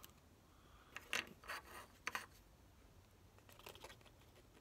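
Faint scraping and rubbing of a small wooden strip being pressed and slid flush onto a miniature wooden frame: a few short scratchy scrapes.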